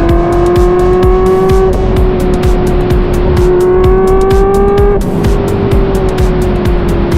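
Ferrari 360's 3.6-litre flat-plane-crank V8 pulling hard, its exhaust pitch climbing steadily and stepping down at a gear change about five seconds in. Background music with a steady beat plays over it.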